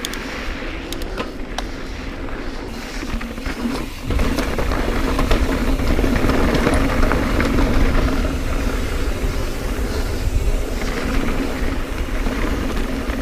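Mountain bike rolling fast down a dirt singletrack: a steady rush of tyre noise and wind on the camera microphone, with a few sharp clicks and rattles from the bike near the start. The low wind rumble grows heavier about four seconds in.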